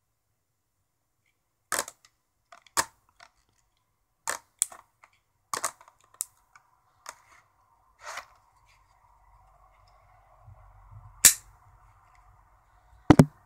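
Sharp, irregular clicks and knocks from handling a Rolson folding knife with a screwdriver-bit handle, about ten in all, the loudest near the end with a quick double click at the very end. A faint steady hum comes in about halfway through.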